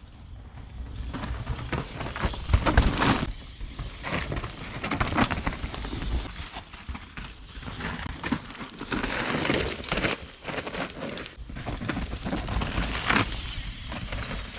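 Mountain bike being ridden downhill on a rough trail: tyres rolling over dirt and stones, with irregular knocks and rattles over bumps and gusts of wind rumbling on the microphone.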